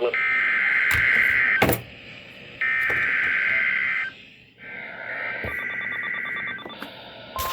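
Emergency Alert System header: three bursts of buzzy two-pitch digital data tones, each about a second and a half long, the third fainter, with a few clicks. Near the end a steady single-pitch alert tone begins. Together they announce a severe thunderstorm warning.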